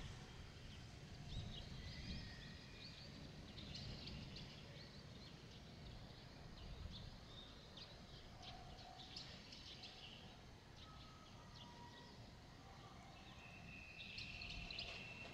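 Faint outdoor ambience: small birds chirping in short, scattered calls over a low rumble, with a brief steady high tone near the end.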